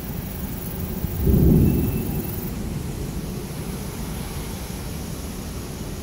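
A low rumble of thunder swelling up about a second in and fading over the next second, over a steady low storm noise.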